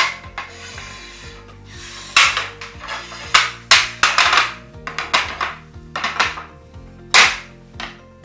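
Metal clacks and knocks of a folding camping table's legs and frame being unfolded and locked into place, a quick run of sharp strikes, the loudest about two, three and a half, and seven seconds in, over background music.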